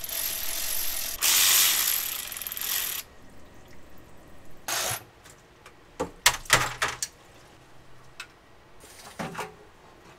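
A 1993 Ford Lightning's E4OD transmission pan being unbolted and lowered. There is ratchet work on the 10 mm pan bolts with a steady rushing noise for the first three seconds. Then comes a cluster of sharp metal clanks and rattles around the middle as the pan comes loose and its fluid drains out.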